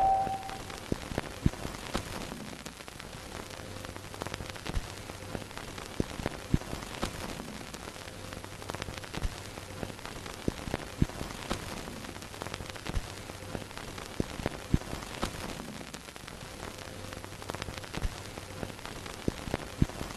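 Crackling static: a steady hiss scattered with irregular sharp clicks and pops over a faint low hum, like old film or record surface noise.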